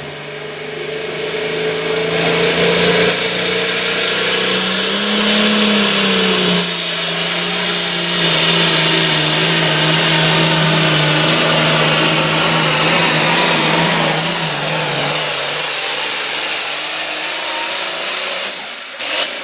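Pulling tractor's diesel engine under full load down the track, with a high whine above the engine note. The note rises briefly about five seconds in, then holds steady before falling away near the end.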